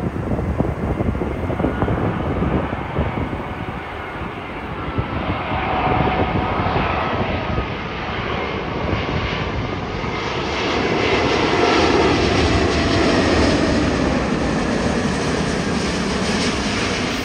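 British Airways Airbus A380's four Rolls-Royce Trent 900 jet engines on final approach, a steady roar with faint whining tones that drift down in pitch. It grows louder as the airliner comes in low and is loudest about two thirds of the way through.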